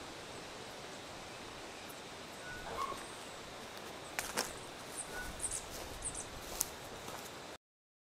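Quiet outdoor background with a few short bird chirps and several light clicks, then a sudden cut to silence near the end.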